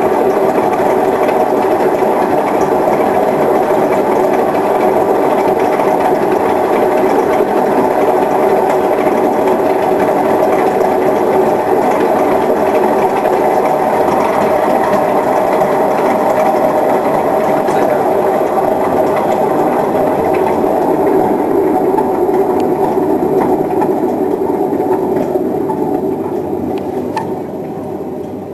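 Privileg Ergonomic 1600 S washing machine drum spinning on a badly damaged drum bearing, a loud steady mechanical drone that starts to wind down and fade over the last few seconds.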